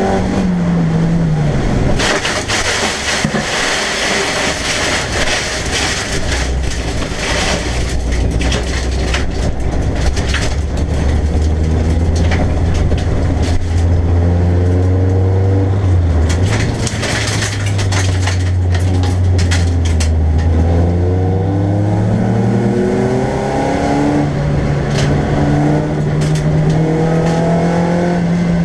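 BMW Compact race car's engine heard from inside the stripped cabin: revs drop at the start, hold a low steady drone through the middle, then climb in pitch twice near the end as it accelerates. Crackling and rattling road noise sits over the engine for much of the time.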